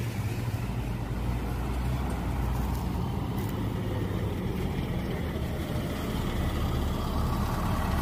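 Double-decker coach's diesel engine running steadily with a low, even rumble.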